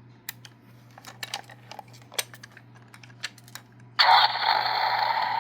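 Light clicks and taps of batteries and a plastic battery compartment being handled. About four seconds in, the Finn McMissile talking toy car's small speaker suddenly starts a loud, steady electronic sound effect: the toy powering up on its fresh batteries.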